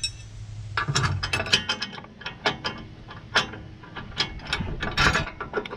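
Irregular metallic clicks and clinks of hand tools and steel hydraulic fittings being handled and worked, coming in quick clusters about a second in and again near the end.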